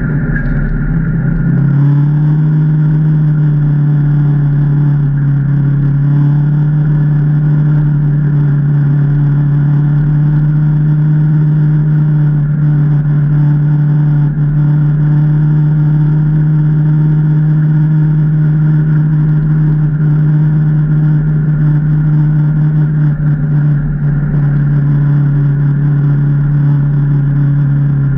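Can-Am Maverick Trail 800 side-by-side's Rotax V-twin engine running at a steady, constant speed. Its pitch steps up slightly about two seconds in, then holds steady.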